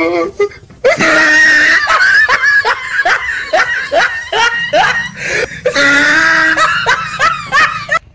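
A person laughing loudly and in an exaggerated way: a run of short ha-ha strokes about three a second, which cuts off suddenly near the end.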